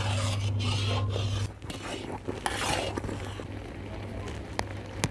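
A scraper is dragged and stirred through thick, thickening carrot halwa in a large iron kadhai, making a rasping scrape that keeps it from sticking to the bottom. A low steady hum runs under the first second and a half, and two sharp clicks come near the end.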